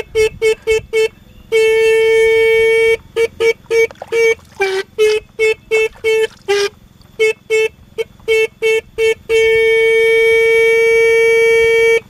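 Motorcycle disc horn honking: many quick short toots, with two long blasts of a second and a half and nearly three seconds.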